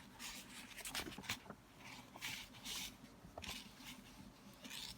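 Faint, scattered rustling and rubbing of paper, as of a book's pages being handled.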